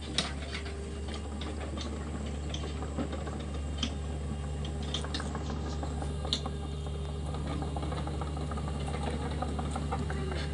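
Hitachi ZX48U mini excavator's diesel engine running with a steady low hum, with scattered sharp clicks and ticks over it.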